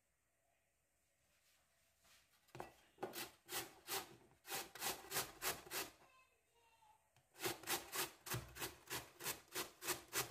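Raw potato being grated by hand on a stainless-steel box grater, in quick even rasping strokes of about three a second. Two runs of strokes with a short pause between them, starting a couple of seconds in.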